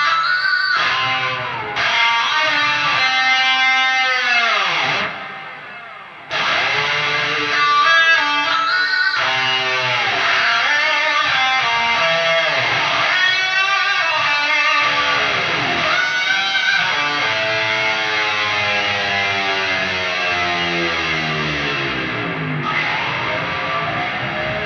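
High-gain electric guitar, an Ibanez PIA, playing sustained lead notes with bends and repeated downward pitch dives. It fades out about five seconds in, then comes back with a sharp new attack, and a long slow dive follows in the second half.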